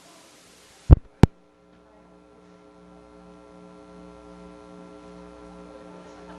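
Two loud, short low thumps about a third of a second apart, then a steady droning hum of several held tones that slowly grows louder.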